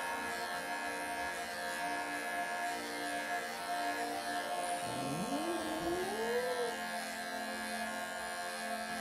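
Cordless electric pet clipper running with a steady buzz as it shaves through a matted, pelted coat, over background music.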